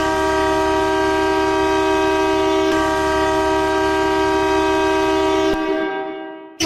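Wellington Dukes' hockey goal horn blowing one long, steady blast of about five and a half seconds that then fades away, with a second blast starting right at the end.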